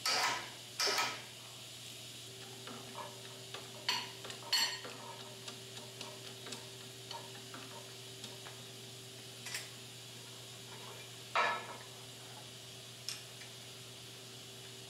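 Scattered metal clinks and knocks as steel press parts, a hydraulic bottle jack and its handle are fitted into a homemade press frame, over a steady low hum.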